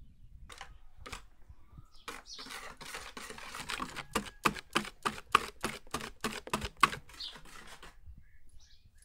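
A run of sharp, regular clicks or taps, about three a second, starting about two seconds in and stopping near the end.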